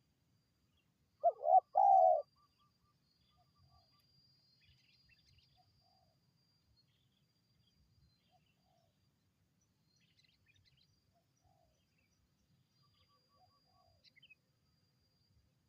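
Spotted dove (tekukur) giving one loud three-note coo about a second in. After it come fainter, shorter coos at the same pitch and a few faint small-bird chirps.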